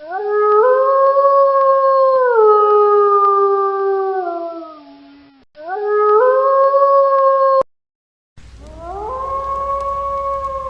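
Wolf howling. A long howl rises, holds, then drops in steps and fades. A second rising howl breaks off abruptly, and after a short silence a third howl rises over a low hum.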